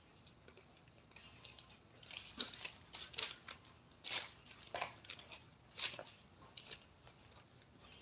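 A series of short, sharp scraping strokes from a hand tool working wood, irregularly spaced and mostly between about two and seven seconds in.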